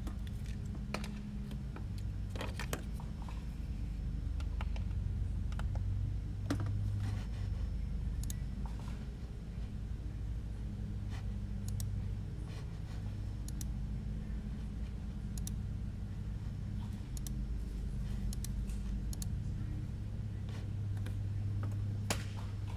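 Scattered light clicks and taps, like a computer mouse and keyboard in use, over a steady low hum.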